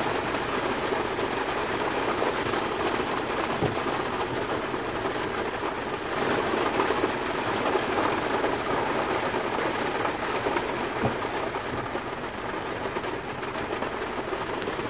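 Steady rushing noise inside a truck's cab while the truck is driving.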